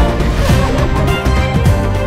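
Background music with a steady beat over held chords.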